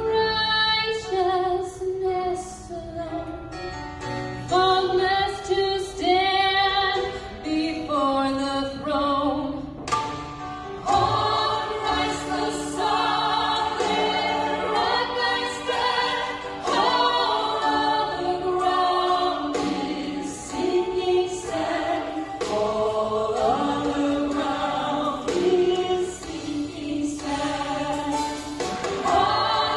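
Two women singing a gospel song as a duet into microphones, with sung lines held and swooping throughout.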